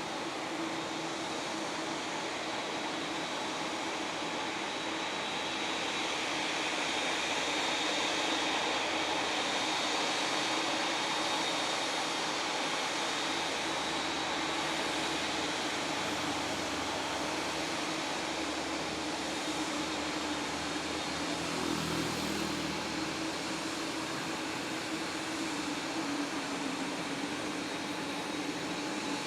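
Boeing 787 Dreamliner jet engines running at taxi power: a steady rush with a thin high whine and a low hum, swelling a little a few seconds in.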